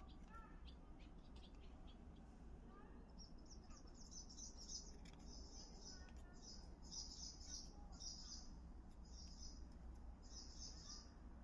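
Faint, quick runs of small scissors snipping ear hair close to the ear. They start about three seconds in and come in repeated short bursts of crisp, high-pitched clicks.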